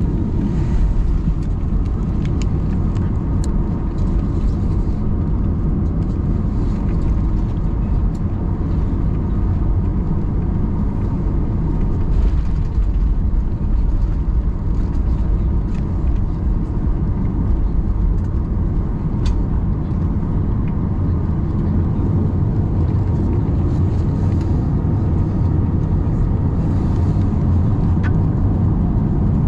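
Steady cabin drone of a Boeing 737-800 with its CFM56-7B engines running, a dense low rumble with a faint constant hum above it, heard from inside the passenger cabin.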